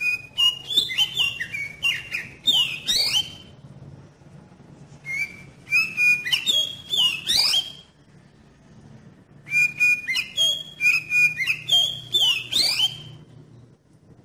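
Oriental magpie-robin (kacer) singing: three loud phrases of varied whistled notes and quick rising and falling sweeps, each a few seconds long, with short pauses between.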